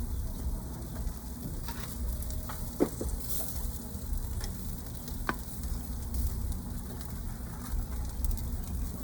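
Seasoned chicken sizzling on a barbecue grill, a steady hiss broken by a few sharp crackles, the loudest about three seconds in.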